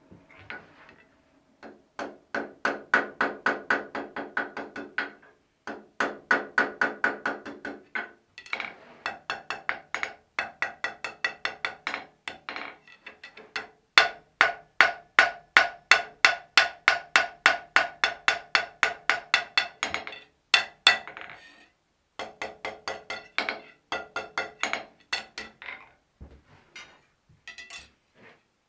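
Blacksmith's hand hammer striking hot iron on an anvil, forging a strap hinge, in bouts of rapid blows about four to five a second with the anvil ringing under each strike. Short pauses separate the bouts, and the blows thin out near the end.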